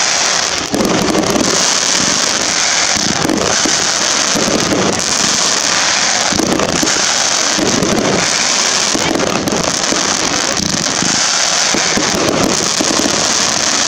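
Fireworks display: dense crackling and fizzing from crackle-star shells, steady and loud, with a dull burst about every second or so underneath.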